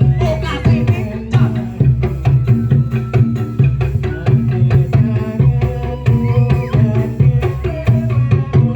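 Dance music with drums keeping a steady beat over sustained melodic tones.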